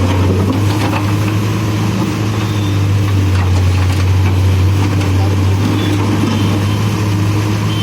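Diesel engine of a CASE backhoe loader running steadily, a constant low hum with no revving.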